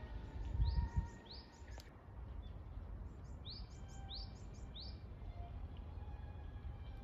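A bird calling in short rising chirps, in quick runs of two or three, about a second in and again around the middle, over a steady low rumble that swells briefly near the start.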